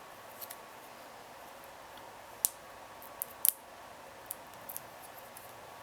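A few scattered sharp clicks and ticks from handling small cardstock pieces and adhesive dots at a craft table, the loudest a single click about two and a half seconds in and a quick double click about a second later.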